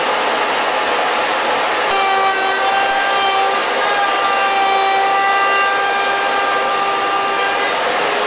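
A woodworking machine running steadily: a loud, even whir with a steady whine that comes in about two seconds in and fades near the end.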